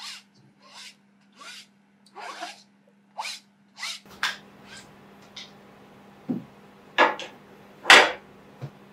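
Spatula scraping pudding custard through a metal sieve, about six rasping strokes less than a second apart, pressing out the last of the liquid. Then a few clicks and knocks of metal utensils, the loudest near the end.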